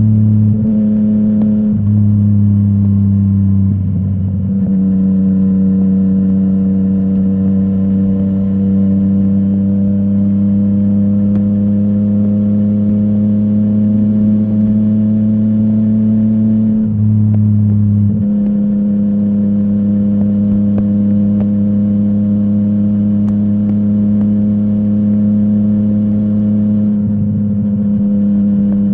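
Yamaha MT-09's inline three-cylinder engine through a full Akrapovic exhaust, running at a steady engine speed under way. The note breaks and shifts briefly about four seconds in, again around seventeen seconds, and near the end.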